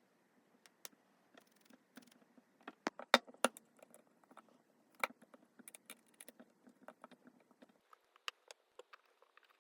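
Scattered small clicks and taps of metal tools and phone parts being handled. The loudest two come a little after three seconds in.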